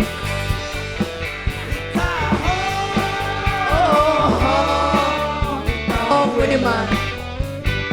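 Rock-and-roll song with a steady drum beat, a band playing and a singer holding long, sliding notes in the middle of the stretch.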